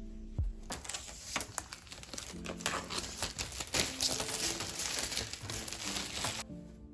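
Clear plastic wrapping crinkling as it is handled, with light clicks and taps of a hard plastic laptop shell case; it starts under a second in and stops shortly before the end.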